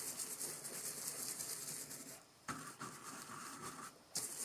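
Round bristle blending brush (a color duster) scrubbing ink onto paper over a stencil: a faint, fast scratchy brushing that stops briefly about two and a half seconds in and again near the end.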